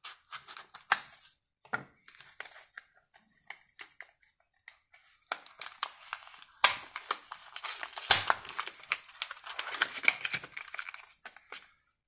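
Plastic blister pack being cut and torn open, the stiff plastic crinkling with sharp clicks and snaps. Scattered at first, then dense and louder crinkling through the second half.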